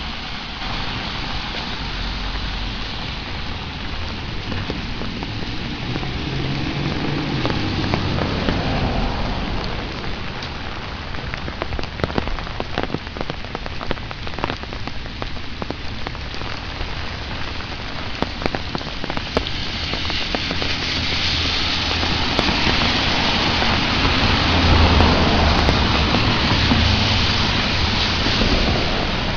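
Steady rain falling on pavement and leaves, with sharp drop taps scattered through the middle and a low rumble that swells twice.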